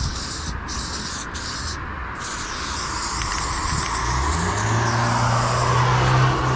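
Aerosol spray-paint can hissing in short bursts, then spraying continuously from about two seconds in. A road vehicle passes: its engine hum and tyre noise swell from about four seconds in and are loudest near the end.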